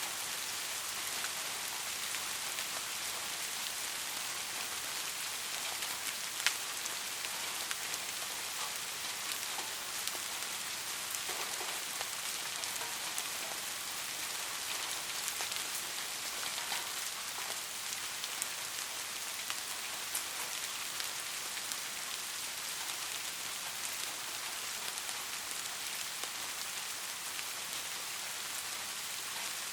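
Steady rain falling, a dense hiss of drops with scattered sharper drip ticks, one louder tick about six and a half seconds in. No thunder is heard.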